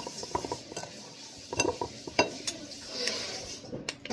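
A spatula stirring and scraping a thick mixture of ice cream, crumbled cookies and sprinkles in a large glass mixing bowl. The utensil knocks and clinks irregularly against the glass, and a few of the clinks ring briefly.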